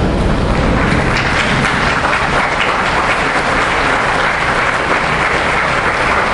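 Congregation applauding, a dense and steady clapping that holds at the same level throughout.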